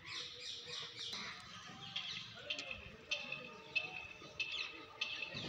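Birds calling: a quick run of high, falling calls in the first second, then a short sharp chirp repeated about every half second.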